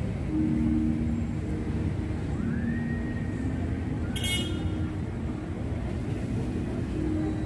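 Street traffic: car engines running slowly nearby as a steady low rumble. About four seconds in there is a brief, sharp high-pitched sound.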